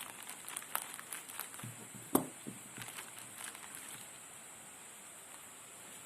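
Handling noises from unpacking a phone box: a run of light clicks and rustles, with one louder knock about two seconds in.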